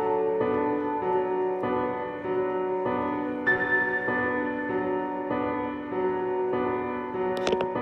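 Background piano music: slow, held chords changing about once a second. A few sharp clicks come near the end.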